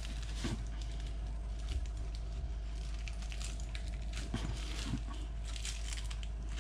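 Soft rustling and small handling clicks as tissue paper, plastic wrap and foam inserts are moved about in a figure's packaging tray, over a faint steady hum.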